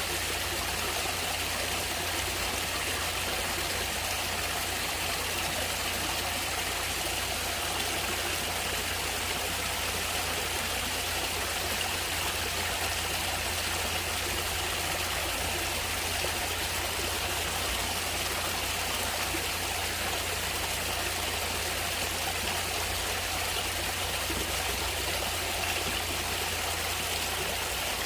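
Stream of natural running water flowing and trickling steadily.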